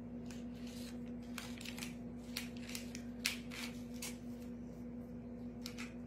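A paintbrush dabbing and stroking syrup onto a cake: a string of soft, short, irregular brushing sounds, one louder about three seconds in, over a steady low hum.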